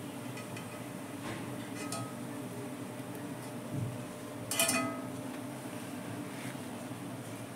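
A wire-mesh frying spider clinking against a glass plate and an iron kadai as fried onions are tipped off it. There are a few light clinks early and a louder one about halfway through, over a steady low hum.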